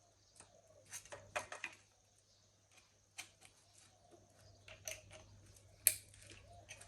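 Scattered light clicks and knocks of metal engine parts being handled and fitted during assembly, with a sharper knock about a second and a half in and the loudest near the end, over a faint steady hum.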